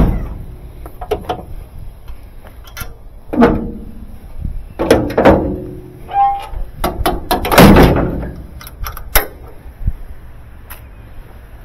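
A truck liftgate platform being handled: a run of irregular metal clanks and thunks with short scraping, ringing squeals between them.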